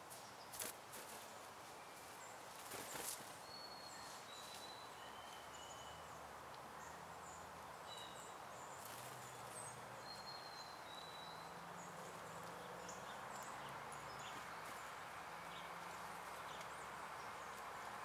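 Faint outdoor bird-feeder ambience: a steady hiss with scattered short, high bird chirps. A couple of brief wing flutters come in the first few seconds as a bird arrives, and a faint low drone joins from about six seconds in.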